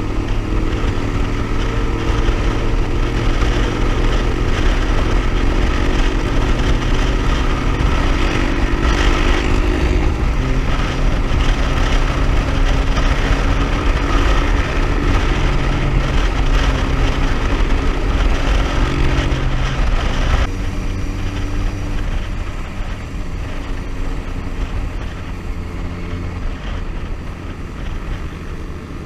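Motorcycle engine running at cruising speed, heard from the rider's own bike with heavy wind rumble on the microphone; the engine note shifts slightly in pitch as the throttle changes. About twenty seconds in, the sound abruptly becomes quieter and duller.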